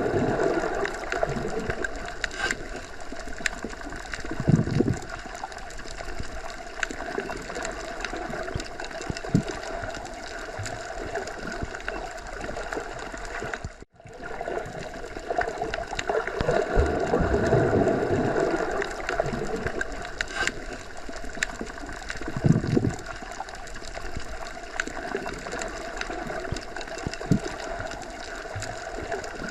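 Underwater ambience: a steady muffled water rush with slow gurgling swells and scattered small clicks. The sound cuts out abruptly for a moment about halfway through, then resumes.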